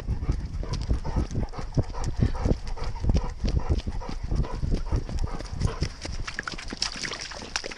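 Rhythmic thudding of a running dog's footfalls, about three a second, heard close up from a camera carried on the dog, with a Weimaraner as the dog.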